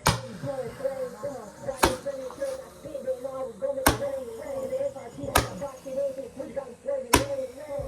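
Five sharp bangs, spaced about one and a half to two seconds apart.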